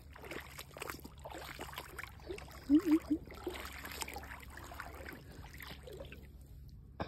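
Shallow river water trickling and sloshing, with small splashes and clicks from movement in the water. About three seconds in, three short low pitched sounds come in quick succession, louder than the water.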